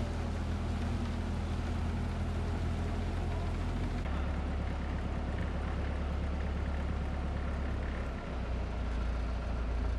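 A motor engine running steadily with a low drone. Its sound changes abruptly about four seconds in.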